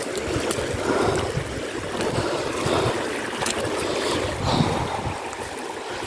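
Shallow river rushing steadily over a stony bed.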